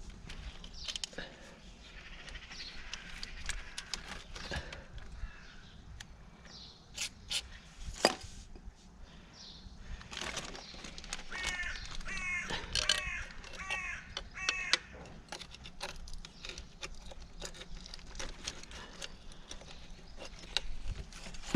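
Scattered clicks and knocks of hand work on hose clamps and coolant hoses, with one sharper knock about eight seconds in. Around the middle, a bird calls about five times in quick succession.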